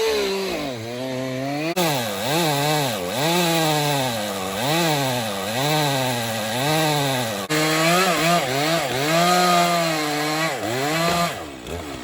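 Stihl chainsaw cutting into a log, its engine pitch dipping and recovering over and over as the chain loads up and clears. The sound breaks off abruptly twice and drops lower near the end.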